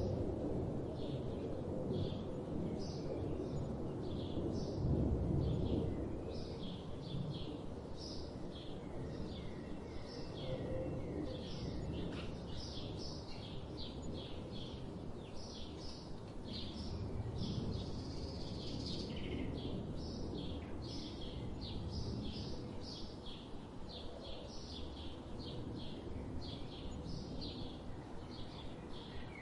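Wild birds chirping and singing, many short repeated notes, over a low steady background rumble that is louder in the first few seconds.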